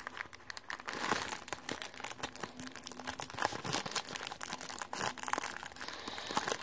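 Thin white paper crinkling as fingers pinch, fold and pull at it: a run of small, irregular crackles.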